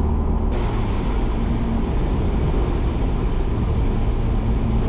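Mazda Miata cabin noise at driving speed with the hard top on: a steady engine drone under road and wind noise. About half a second in, the hiss jumps sharply and stays louder, as at highway speed.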